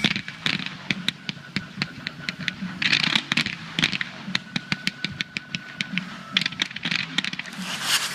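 Fireworks crackling: many sharp pops in quick, irregular succession, with short bursts of hiss.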